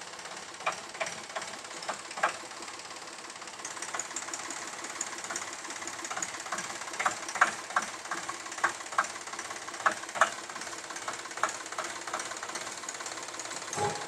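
Sonalika tractor's diesel engine running at low speed, with sharp metallic clanks and knocks at irregular intervals, several a second in places.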